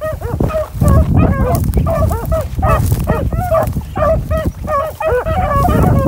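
Several beagles baying together without pause, their calls overlapping as the pack runs a scent line. Wind buffets the microphone with a low rumble underneath.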